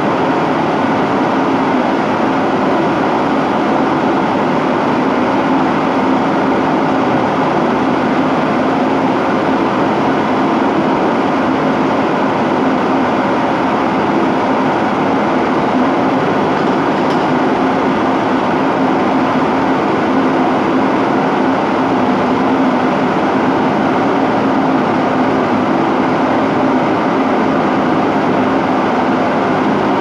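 Industrial rack-conveyor dishwasher running steadily: a constant loud rushing noise with a low hum underneath.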